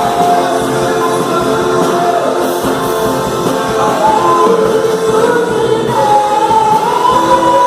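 Music with singing: a sung melody of long, gliding held notes over a full band or choir.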